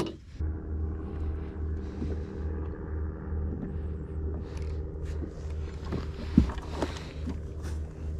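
Steady low hum of a small motor, throbbing about three times a second, with a sharp knock about six and a half seconds in.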